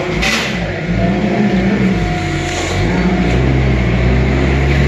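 A vehicle engine running close by, a low rumble whose pitch drifts up and down, with a brief hiss just after the start.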